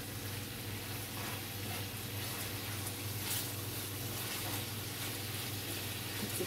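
Chicken thighs sizzling in a frying pan as they brown in oil and pan juices once the braising water has boiled off, with a few light taps of a utensil turning the pieces.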